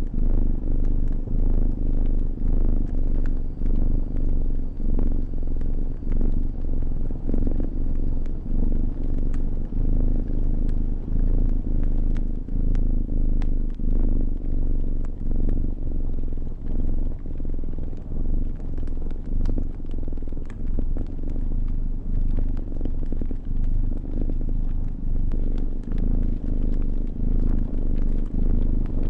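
Domestic cat purring close up, a low rumble that swells and dips with each breath, over the scattered small pops and crackles of a wood fire.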